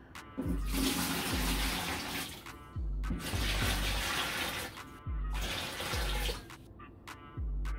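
Water pouring into a large pitcher in three runs of about two seconds each, with short breaks between them. Background music with a low beat runs underneath.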